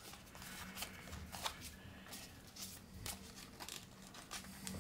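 Paper Foldscope microscope handled in the hands: scattered light rustles and clicks of its card stock as its tabs are tucked in and the parts are moved.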